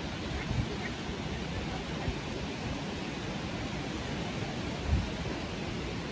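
Steady rushing noise of wind and surf at the shore, with a couple of low thuds of wind on the microphone, the loudest about five seconds in.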